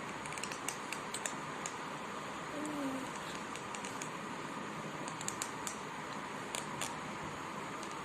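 A child grinding and gnashing his teeth (bruxism): irregular sharp clicks of tooth on tooth in two clusters, one in the first two seconds and one from about five to seven seconds in. About three seconds in there is a short small vocal sound.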